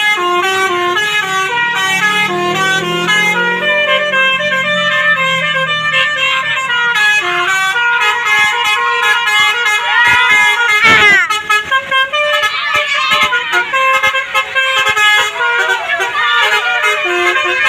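Bus 'telolet basuri' melody horn playing a tune in quick, stepped notes, with a brief swooping glide about eleven seconds in.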